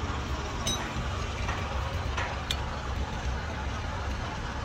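Steady low rumble of running vehicle engines, with two light metallic clicks about two seconds apart, the first with a short ring.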